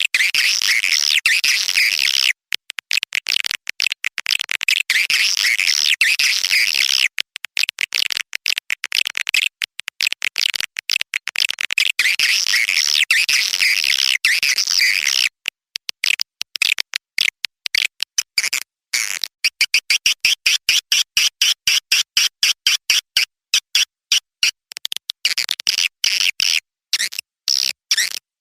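Recorded swiftlet call used as a lure to draw swiftlets into a swiftlet house: dense, high chittering twitters, broken several times by abrupt silent gaps. From about twenty seconds in it changes to a rapid run of short separate chirps.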